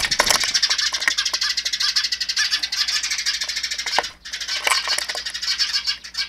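Birds chirping and chattering in a fast, continuous rattle, with louder single calls standing out now and then. A short thump and wing flutter come right at the start, as a mynah takes off from the nest box.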